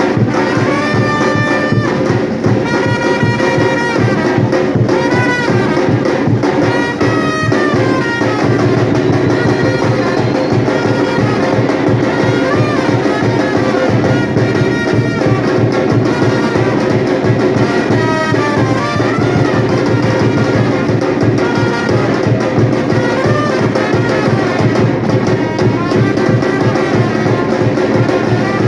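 Live batucada band playing loud: a steady, driving drum rhythm with brass horns carrying a melody over it.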